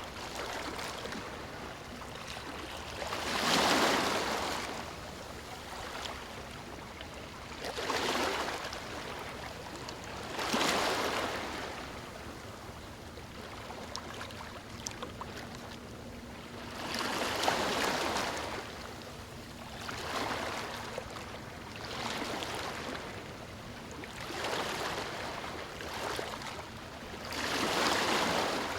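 Ocean waves breaking and washing up a beach. Each surge swells into a hiss and falls away every few seconds, with the strongest breakers about four seconds in, around the middle and near the end.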